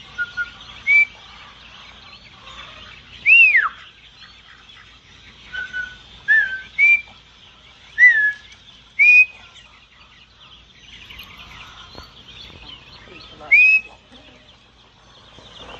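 Herding whistle commands to a border collie: a series of short, loud whistled notes, each a single rising or falling slur, with a longer note that sweeps up and then down a few seconds in. Behind them a group of ducklings peeps steadily.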